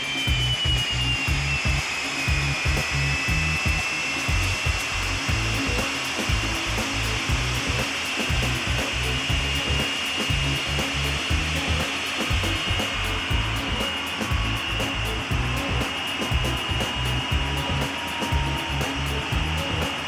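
Folland Gnat's Bristol Siddeley Orpheus turbojet running on the ground: a high turbine whine over a broad rush of jet noise. The whine drops in pitch over the first couple of seconds, then holds steady. Low buffeting on the microphone runs underneath.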